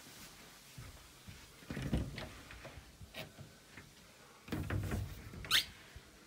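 Quiet knocks and rustles of someone moving about a room, with one short, sharp click about five and a half seconds in.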